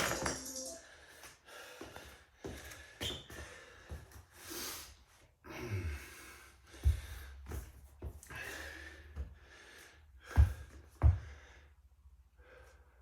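A man breathing hard while recovering between workout exercises, with a few short soft thumps and shuffles from moving about, the loudest about halfway through and near the end.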